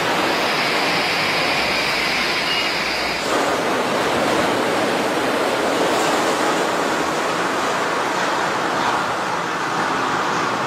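Suspended monorail car gliding past close by, with a steady high whine over a rushing noise. After a cut about three seconds in, a steady broad rushing noise while another suspended monorail approaches above a street.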